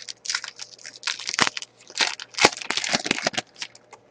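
Hockey card pack wrapper being torn open and crinkled by hand: a dense run of crackling rustles that stops about three and a half seconds in.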